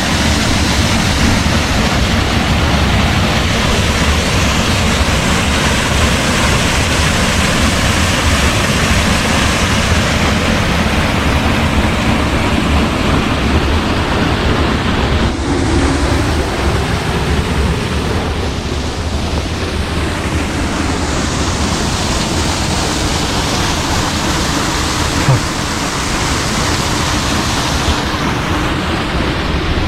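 Steady, loud rushing of water, with a low wind rumble on the microphone.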